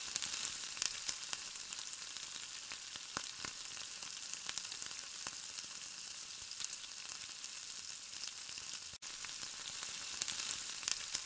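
Raw chicken pieces sizzling and crackling in hot tomato-and-onion masala in a cooking pot, with a spatula stirring through it. The steady sizzle is broken by a split-second gap about nine seconds in.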